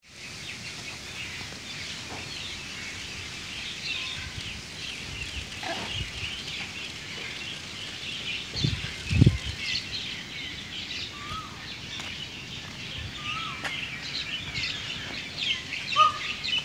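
Many small birds chirping in a dense, continuous chorus. A few short, lower calls come in during the second half, and a couple of low thumps sound about nine seconds in.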